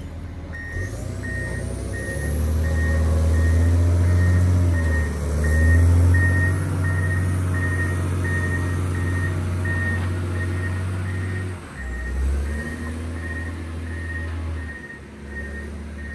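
John Deere 670 GP motor grader's diesel engine running under varying load while its reversing alarm beeps steadily, about one and a half beeps a second, starting about half a second in. The engine note dips briefly about twelve seconds in.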